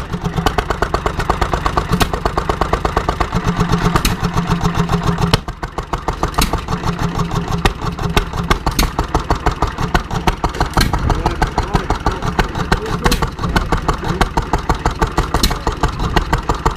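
Small vintage stationary gas engine running steadily with a fast, even firing beat; the note changes about five seconds in. A sharp click sounds about every two seconds over it.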